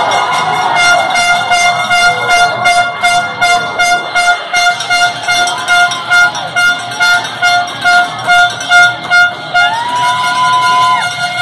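An air horn blasting in short repeated toots, about two to three a second, over arena crowd noise, ending in one longer, higher blast near the end.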